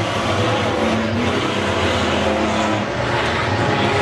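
Several race car engines running hard at once, their overlapping notes rising and falling as the cars accelerate and ease off.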